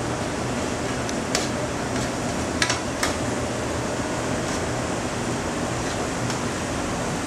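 Steady whir of a commercial kitchen exhaust hood fan, with a few sharp clinks of a spoon against a pan about one and a half, two and a half and three seconds in.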